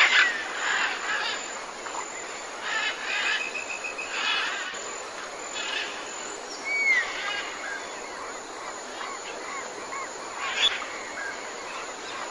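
Tropical forest ambience: several birds calling over a steady hiss of insects, with curving whistled notes, a fast run of repeated notes a few seconds in, and scattered bursts of calls, one sharp call near the end.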